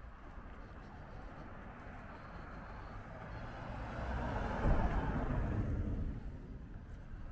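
A car driving past close by: tyre and engine noise swells over a few seconds, peaks a little past the middle, and fades away, over a steady low street background.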